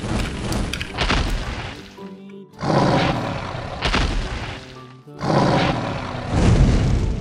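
Background music with a dragon roar sound effect laid over it: several loud, noisy roars starting about two and a half seconds in.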